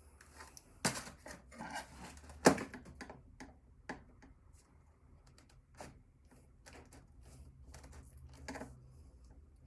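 Scattered clicks, taps and knocks of hand disassembly of a laptop: a small screwdriver and plastic case parts being handled, with a sharper knock about two and a half seconds in.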